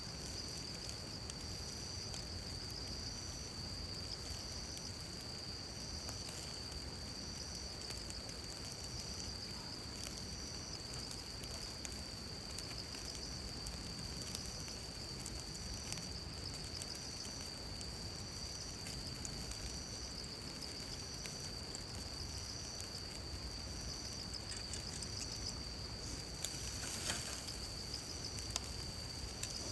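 Insects trilling steadily on one high note, with a second, higher call pulsing a little more than once a second. There are scattered faint clicks, and a brief rustle near the end.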